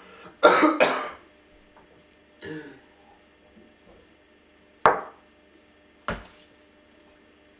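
A man coughing harshly into his fist, two loud coughs about half a second in and a faint one later. Near the five-second mark comes another sharp cough-like burst, and about a second after it a short sharp sound with a low thump.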